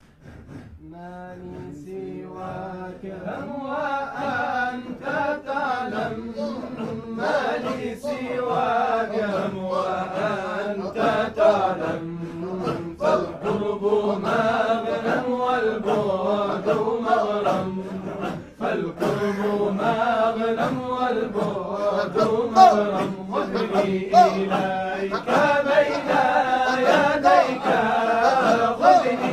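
A group of voices chanting Sufi dhikr together in a Shadhili hadra, repeating short phrases in a steady rhythm. The chant fades in over the first few seconds.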